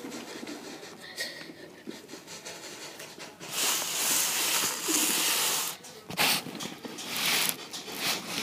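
A person making breathy hissing and chuffing sounds with the mouth, imitating a steam locomotive working hard up a grade. A long hiss starts about three and a half seconds in, followed by several shorter bursts.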